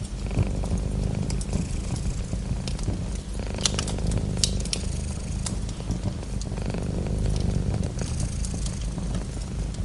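Domestic cat purring steadily and close up, with a few sharp crackles from a fireplace fire in the middle.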